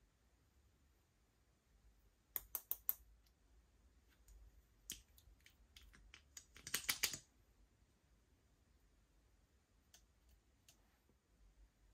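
Faint, sharp plastic clicks from a small heart-shaped plastic lipstick case and its cap being handled and pulled open: a quick run of about four clicks a little after two seconds in, a few scattered ticks, then a dense clatter of clicks just before seven seconds.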